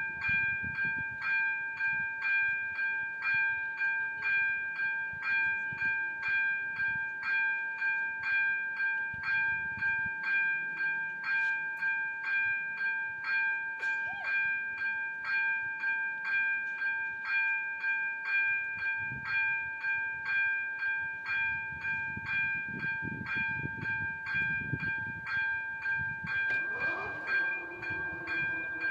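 Czech level-crossing warning bell ringing steadily, about two strikes a second, signalling an approaching train. In the last third the low rumble of the train builds underneath, and a tone slides in pitch near the end.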